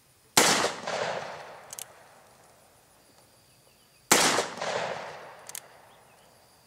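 Two shots from a Freedom Arms Model 83 .475 Linebaugh revolver, about four seconds apart. Each is a sharp loud crack that fades out over a second or so, followed by a faint short click.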